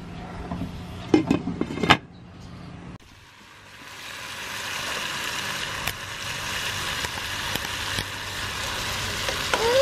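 Crawfish sizzling in a skillet of garlic butter seasoning: a steady frying hiss that builds up a second or so after a cut and then holds, with a few light clicks of the spatula. Before it, a low steady hum with a few knocks at the boiling crawfish pot.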